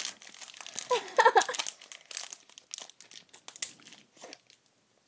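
Candy wrapper crinkling in quick, irregular crackles as a candy is unwrapped by hand, dying away near the end. A short voice sound about a second in.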